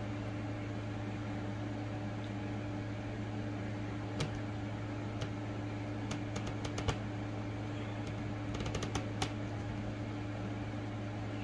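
Small plastic toy-crib pieces clicking and tapping as they are handled and fitted together, a few scattered clicks with a short cluster near the end. Under them runs a steady low electrical hum.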